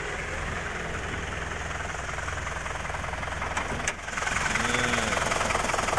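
Isuzu Panther's 2.5-litre diesel engine idling with a steady clatter. A sharp click comes about four seconds in, and after it the idle is louder and clearer.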